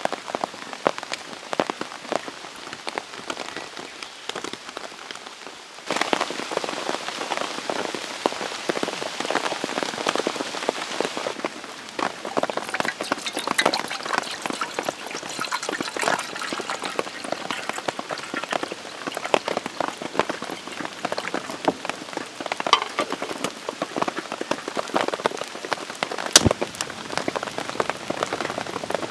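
Steady rain, with many drops ticking on a surface. It gets suddenly louder about six seconds in. A single sharp click stands out near the end.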